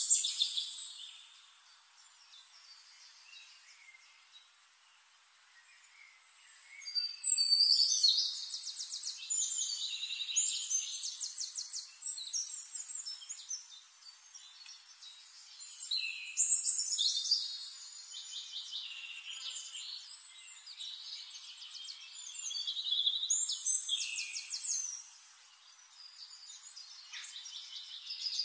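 Songbirds singing in bouts of fast, high-pitched trills and chirps, with quieter stretches between, the longest near the start.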